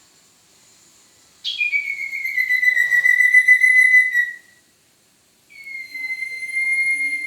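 Lure call for the sirtu owl: two long, clear whistles held on one pitch. The first starts with a quick drop and lasts nearly three seconds; the second comes about a second later and is still going at the end.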